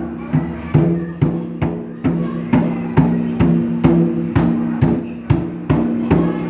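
A drum from a drum kit beaten by a toddler at a steady pace of about two hits a second, each hit ringing on.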